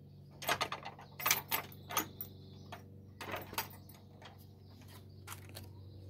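Light metal chain on a gate latch rattling and clinking as it is pulled by hand, in several short bursts of sharp metallic clicks over the first four seconds, then a few faint single clicks.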